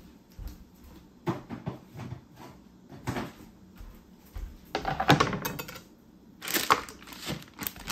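Irregular knocks and clatters of a plastic cutting board and a kitchen knife being handled and set down on a wooden butcher-block table, with a louder rustling scrape near the end.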